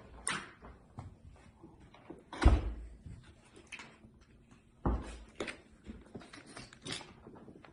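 Thumps and knocks as a heavy electromagnet panel of about 17.5 kg is handled and set down to be weighed. The loudest, deepest thump comes about two and a half seconds in, another near five seconds, with lighter clicks and knocks between.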